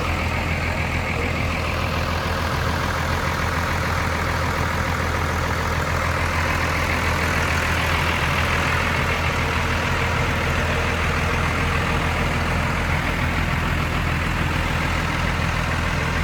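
Heavy vehicle engine idling steadily with a constant low hum; a higher hiss swells and fades about halfway through.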